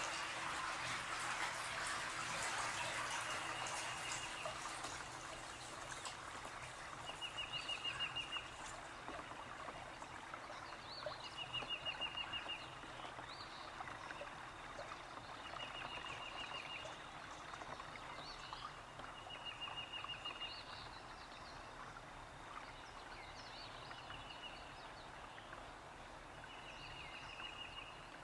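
A songbird repeating a short, fast trill about every four seconds, over the sound of lapping water.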